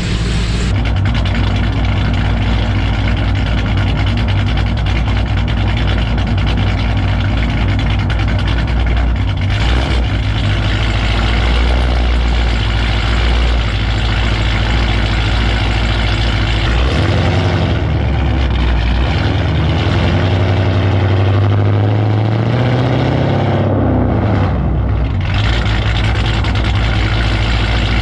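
Cammed 6.1 L Hemi V8 of a Chrysler 300 SRT8 with a full straight-pipe exhaust, running loudly with a choppy, lumpy note. For several seconds past the middle the pitch rises and falls as the engine speed changes, then settles back.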